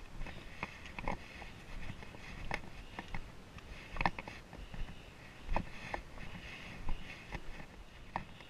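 Irregular footsteps and knocks of a hiker walking down a dirt mountain trail, over a faint steady hiss.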